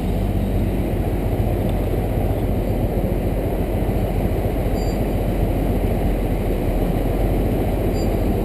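Motor vehicle engine running steadily, a low, even rumble.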